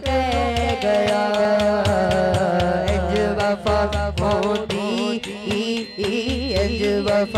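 A young male reciter sings a devotional Punjabi manqabat into a microphone, holding long wavering notes with melismatic ornaments, over a low pulsing backing.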